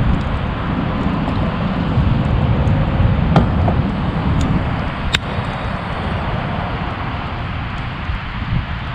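Campfire of bought firewood burning with a few sharp pops as the wood bursts and throws sparks, the loudest about a third and just over halfway through, over a steady rush of background noise. The owner has heard that such popping is a sign of firewood holding a lot of moisture.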